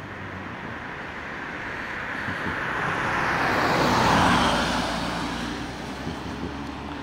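A road vehicle passing by on the street: tyre and engine noise that swells to its loudest about four seconds in, then fades away.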